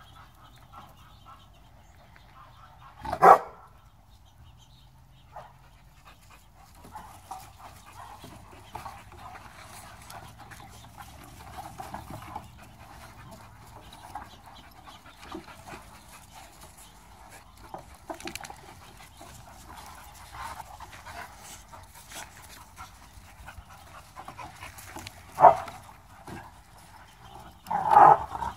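Pit bulls and American bullies playing, panting, with a few short loud barks: one about three seconds in and a few more near the end.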